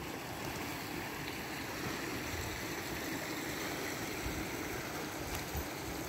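A small creek running beside the trail: a steady rushing of water, with an uneven low rumble underneath.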